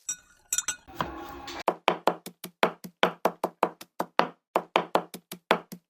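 Knife chopping quickly on a cutting board, a fast even run of sharp knocks about five a second that starts a little under two seconds in.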